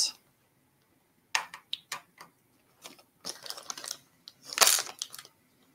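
Small hard case parts clicking and tapping onto a tabletop as they are handled, in a few separate light clicks and then a quick cluster, with a short plastic-bag rustle about four and a half seconds in.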